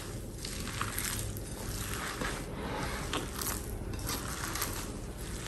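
A gloved hand squeezing and kneading raw chicken mince with grated cheese, chopped onion and herbs in a glass bowl: wet squelching and crunching in repeated swells, about one or two a second.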